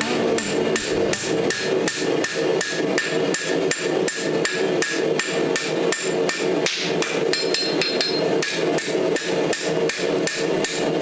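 Hand hammer striking hot steel on an anvil in a steady rhythm of about three blows a second, each with a short metallic ring: forging the bevels into a wakizashi blade.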